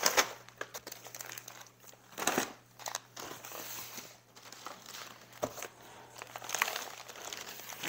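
Packaging crinkling and rustling as hands rummage through a shipping box of seed packets, in irregular crackles with one louder rustle about two seconds in.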